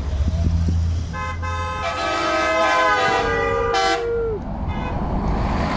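A vehicle horn honks for about three seconds from a passing race-convoy vehicle, changing pitch twice and sliding down as it stops. It sounds over the low rumble of vehicles driving past.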